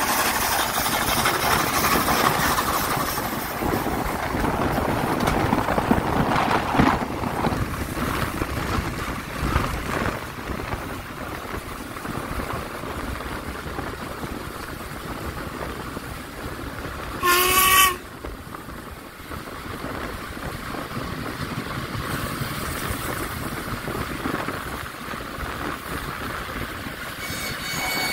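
Steam locomotive and train running, the rumble of the train loudest over the first several seconds and then quieter. About two-thirds of the way through comes one short, loud whistle blast, and a fainter tone starts just at the end.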